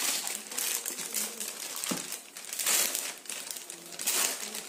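Clear plastic packing bag crinkling as hands handle it and work it open, in several separate rustles, the loudest about two and a half and four seconds in.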